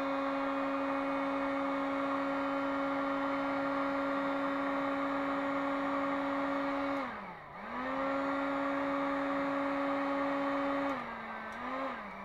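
Hot air gun running, a steady motor whine over a rush of air, as it heats a sheet of plasticard to soften it. About seven seconds in its pitch sags sharply and climbs back, and near the end it drops to a lower, quieter note.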